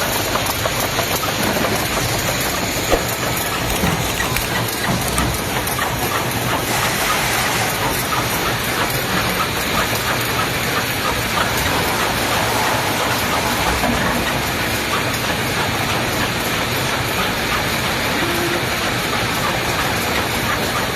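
Production or packaging machinery running, a steady dense clatter of fine rapid clicks over a continuous hiss.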